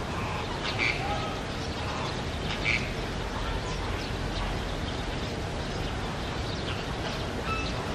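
Two short, sharp animal calls, about a second in and again under three seconds in, over a steady outdoor background hum, with a faint high note near the end.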